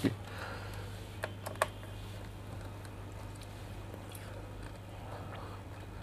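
A few small, sharp clicks of a screwdriver and metal cover as an M.2 NVMe heatsink cover is fitted onto a motherboard, the clearest about a second and a half in, over a steady low hum.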